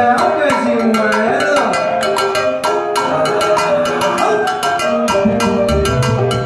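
Live salsa band playing, with busy, sharp percussion strokes over the horns and other instruments; the bass drops out and comes back in about five seconds in.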